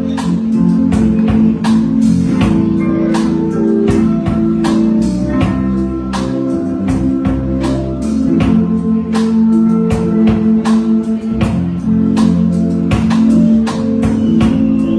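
Music with guitar and a steady, regular drum beat.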